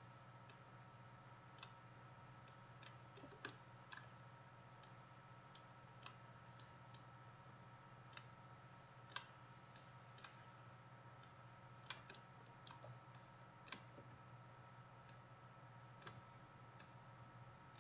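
Faint computer mouse clicks, irregular and a second or so apart, over a steady low hum.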